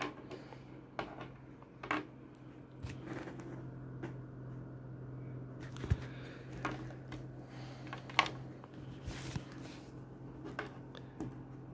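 A small plastic Luke Skywalker action figure handled on a wooden desk: scattered light clicks and taps, the sharpest about six and eight seconds in, over a steady low hum.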